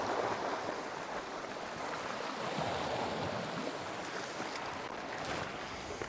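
Sea waves washing steadily over and around shoreline rocks.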